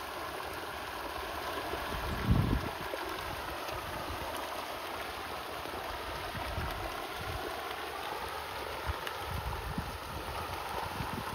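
Many fish splashing and churning at the water surface in a feeding frenzy, a steady rushing splash. A loud low thump about two seconds in, with smaller low knocks later.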